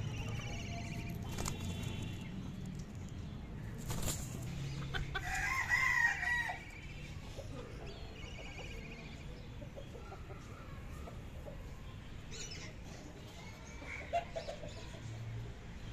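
A rooster crows once about five seconds in, a short high-pitched crow lasting about a second and a half, with a few fainter hen clucks before and after.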